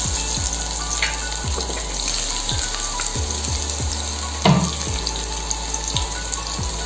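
Spiny gourd slices sizzling as they fry in hot oil in a steel pan, with one brief louder thump about four and a half seconds in. A steady beat of background music runs underneath.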